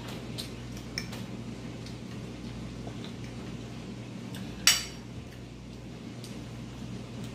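Metal forks clicking and scraping against glass plates: a few light clinks, then one much louder sharp clink with a brief ring a little past halfway.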